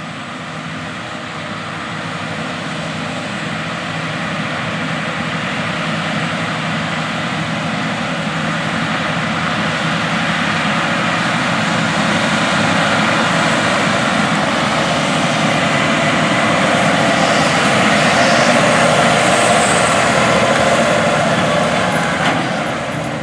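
A large diesel farm machine running at work, growing steadily louder as it draws closer over most of the stretch, then easing off slightly near the end.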